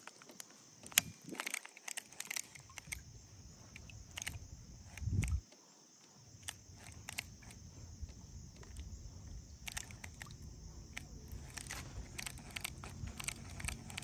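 Scattered light clicks and knocks from fishing tackle and the kayak being handled, with one louder low thump about five seconds in, over a steady high-pitched hiss.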